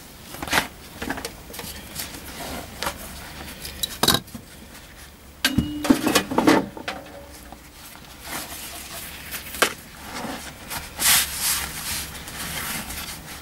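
Handling noise on a wooden workbench: scattered light knocks and small metallic clinks, with the rub and rustle of heavy leather being moved and folded.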